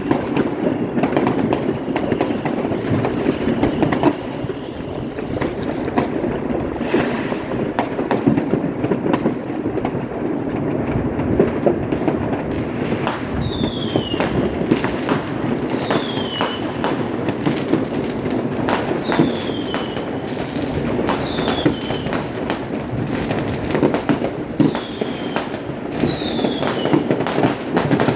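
New Year's fireworks and firecrackers: a dense, continuous crackle of many bangs. From about halfway on, short falling whistles come every two seconds or so.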